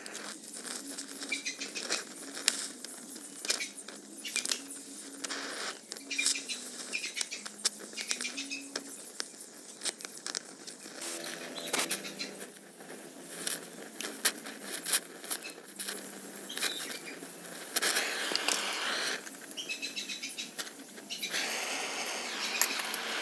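Gas torch hissing in spells while brazing an oil lamp, with many light metallic clicks and taps from the filler rod and metal parts. The hiss swells for about a second near the two-thirds mark and again near the end.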